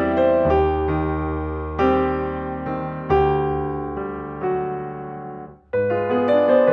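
Background piano music: sustained chords changing every second or so, with a brief break near the end.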